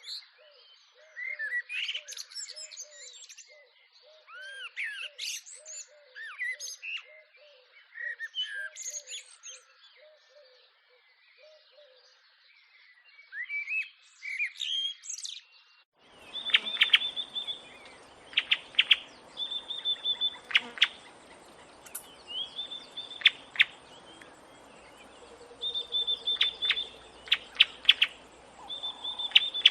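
Birdsong from several birds: quick chirps and whistles over a low note repeating about three times a second. About halfway through it cuts to a different recording of sharp repeated calls with a faint steady high tone behind them.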